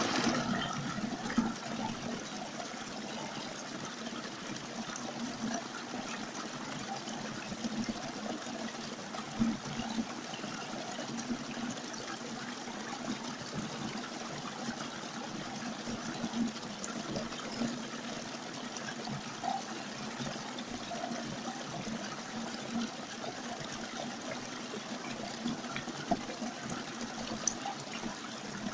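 Small stream splashing down a little cascade over rocks: a steady rush of water, with a few brief louder moments.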